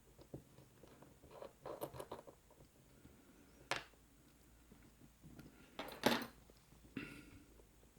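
Small metal clicks and clatter from handling a laminated steel padlock while it is being taken apart: a quick run of light taps, a single sharp click, then a louder clatter a few seconds later.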